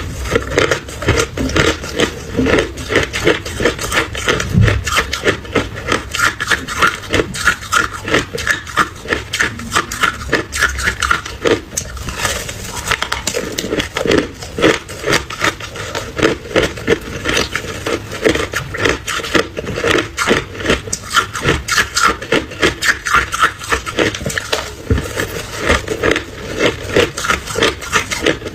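Ice being chewed close to the microphone: a steady run of sharp, crisp crunches, several a second, as the ice cracks between the teeth.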